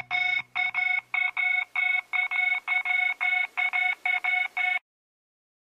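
Rapid string of short electronic beeps, all at the same pitch, about four a second in a slightly uneven rhythm, cutting off abruptly near the end.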